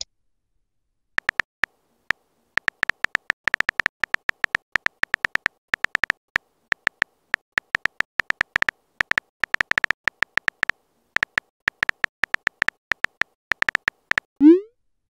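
Smartphone on-screen keyboard tap sounds: rapid, irregular short clicks, one per typed letter, as a text message is typed. Near the end a short rising swoosh, the message-send sound.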